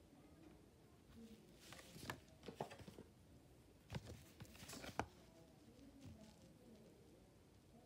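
A sheet of lined paper being handled and swapped for another, with a few short crackles about two seconds in and again around four to five seconds in; otherwise near silence.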